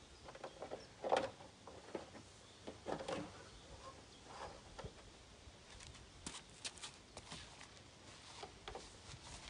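Scattered light knocks and clicks of a rain gutter being handled and set into its roof-edge hangers. The loudest knock comes about a second in, a cluster follows around three seconds in, and smaller ticks come later.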